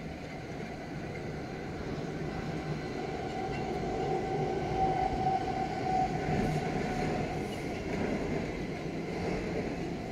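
A train running past on the station approach tracks: a steady rumble that builds to a peak about halfway and eases off, with a faint steady whine through the middle.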